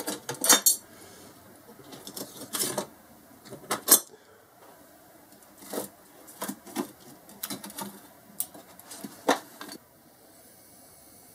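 Metal hold-down clamps being taken off an aluminium sheet on a CNC machine bed and the sheet handled: a string of irregular metallic clinks and clatters that stops about ten seconds in.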